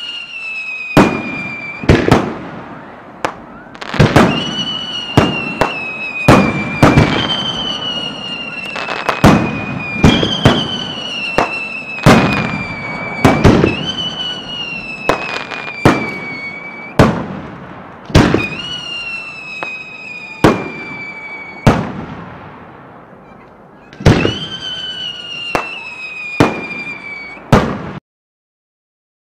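Fireworks launched and bursting at very close range: sharp bangs every second or two, overlaid by several high whistles that each slide slowly down in pitch over about two seconds. Near the end the sound cuts out completely for about a second, a glitch in the recording.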